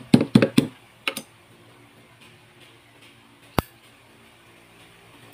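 Sharp metallic clicks and taps from handling a 1911 pistol frame and its small parts: a quick cluster of clicks in the first second, then quiet, with one sharp click about three and a half seconds in and another near the end.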